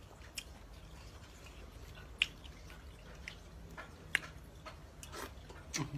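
Scattered light clicks and soft wet squishing from hands preparing food, the sharpest clicks about two and four seconds in.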